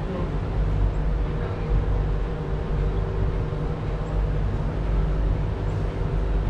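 Passenger boat's engine running at a steady cruise: a low, even drone with a steady hum.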